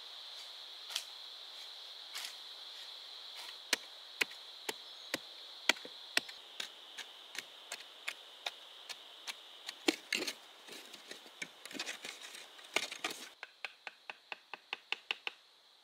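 Repeated sharp chopping strikes of a blade on wood, about two a second, coming faster near the end. A steady high-pitched hum runs behind them and cuts off abruptly late on.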